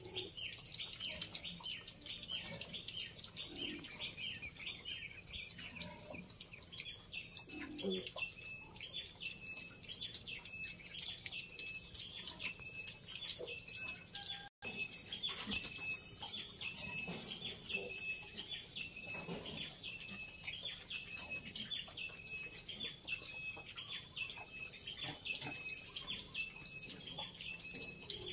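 A bird chirping over and over, about one and a half short calls a second, with a brief dropout about halfway through.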